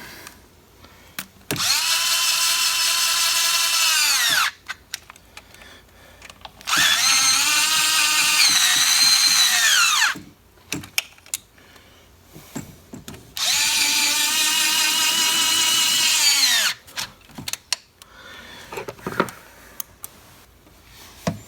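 Cordless drill running bolts down on an engine valve cover in three runs of about three seconds each, the motor's whine dipping in pitch partway through the second run as the bolt snugs up, with small clicks and clatter of tool and parts between the runs.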